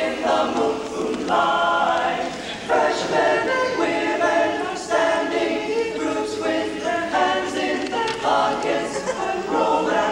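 All-male a cappella group singing in close harmony, without instruments, holding chords for a second or two at a time.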